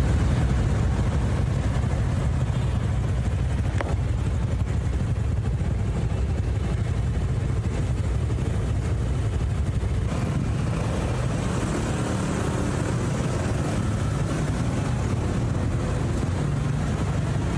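Steady street traffic noise at a busy intersection: a continuous low rumble of motorcycles and cars passing.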